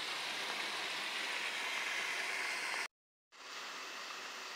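Steady, even hiss of background noise. It drops out completely for about half a second a little before three seconds in, then resumes slightly quieter.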